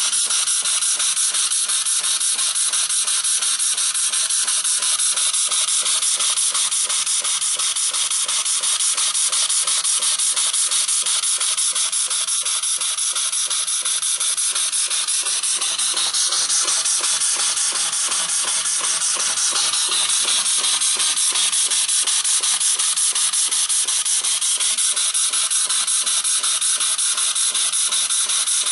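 Small homemade prototype steam engine running fast and steadily, its exhaust hissing in rapid, even puffs.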